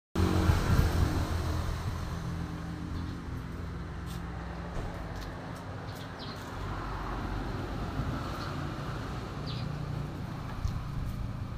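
Small air-cooled single-cylinder motorcycle engine idling steadily, a little louder in the first two seconds, with a few faint high chirps over it.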